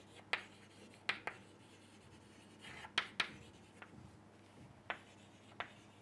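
Chalk writing on a blackboard: a series of short, separate scratches and taps as letters are drawn, quiet and irregular.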